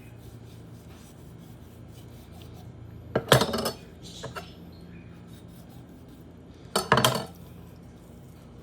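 Two short bursts of kitchen clatter about three and a half seconds apart, each a few quick knocks of metal utensils against a hard surface, with a faint single knock between them.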